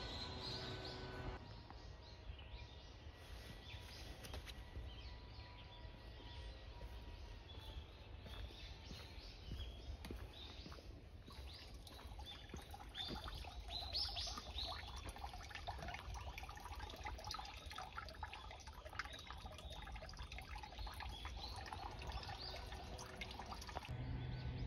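Small birds chirping in woodland. About halfway through, water starts running from the spouts of a shrine's stone hand-washing basin (temizuya), pouring and trickling into the stone.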